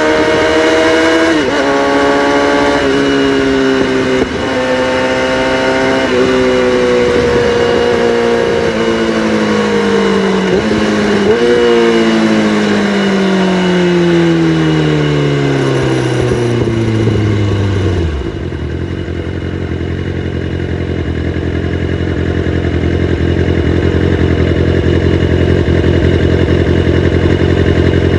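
Kawasaki ZX-6R inline-four with catalytic converters deleted, engine speed falling as it slows and downshifts, with a few short rises in revs, then settling to a steady idle about eighteen seconds in.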